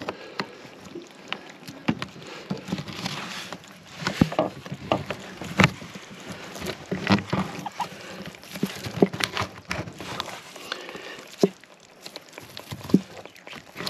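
Hands tying up a live mud crab: an irregular run of sharp clicks, knocks and rustles as the shell and claws are handled and the twine is wrapped and pulled tight.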